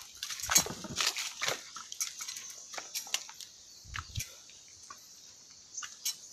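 Footsteps on loose rocks and dry leaves: irregular crunches and clicks of stone and leaf litter underfoot, over a steady high hiss.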